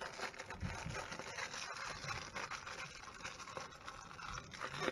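Faint rustling, scraping and light clicks of hands handling a small signal mirror and its plastic packaging.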